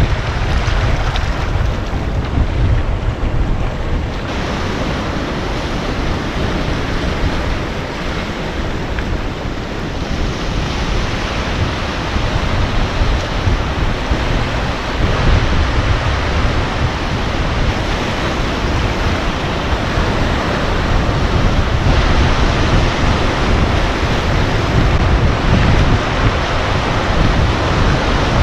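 Surf breaking and washing over shoreline rocks, with wind buffeting the microphone in a steady low rumble.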